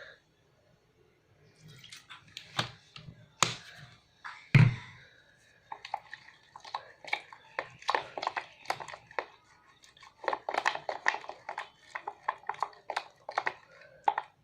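Glue and water being stirred with a spatula in a bowl: a few knocks, the loudest about four and a half seconds in, then from about five seconds on a quick, continuous run of sticky, wet clicking and squelching.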